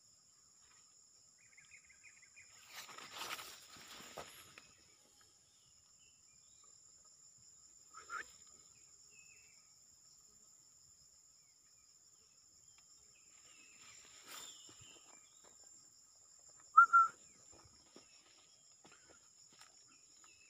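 Insects buzzing steadily in a high pitch, with a brief rustle a few seconds in. Two short, sharp animal calls near the end are the loudest sound, after a single fainter call about eight seconds in.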